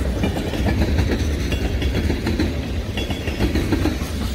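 Loaded freight tank cars rolling past close by at a slowish speed: a steady low rumble of wheels on rail with scattered clanks and clatter of wheels and couplers.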